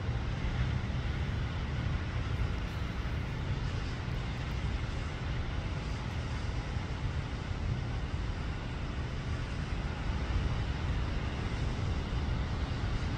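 Steady outdoor ambient noise: a low rumble with a fainter hiss over it, without distinct events.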